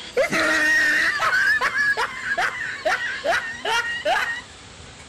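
High-pitched snickering laugh: a quick run of short rising squeaks, a little over two a second, that stops about four seconds in.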